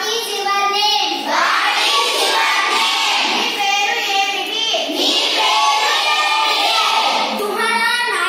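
Schoolchildren's voices singing in unison in short phrases.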